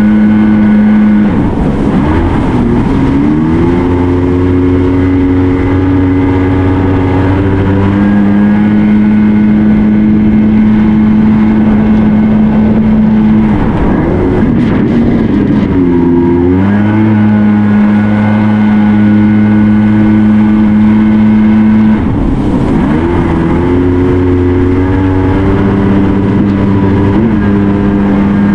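Watercraft engine running at steady high revs; three times the revs drop and climb back up as the throttle is eased off and opened again.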